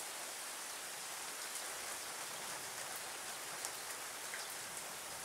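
Steady heavy rain hissing down during a thunderstorm, with scattered sharp ticks of drops striking nearby.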